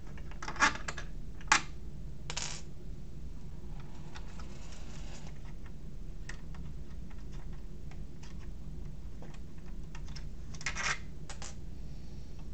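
Allen key and small screws clicking and scraping against the metal print head carriage of a 3D printer as the fan assembly is unscrewed. A few sharp clicks come in the first couple of seconds and another short cluster near the end, with faint ticks between.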